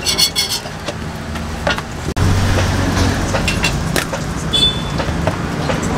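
Steady roadside background noise with traffic, and a few light clicks and taps of utensils. About two seconds in the background gets louder in the low range.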